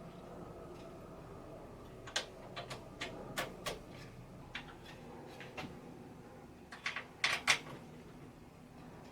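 Sharp clicks and knocks of a CPU cooler heatsink being handled and fitted onto a desktop motherboard, hard parts tapping and seating against each other. They come one or two at a time, with the loudest cluster of knocks near the end.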